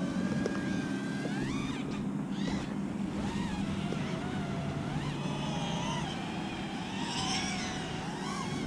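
iMpulse RC Apex FPV quadcopter's brushless motors and propellers whining, the pitch sweeping up and down as the throttle is pushed and eased through turns.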